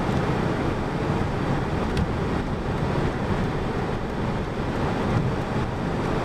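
Steady road and wind noise inside a moving vehicle's cabin at highway speed.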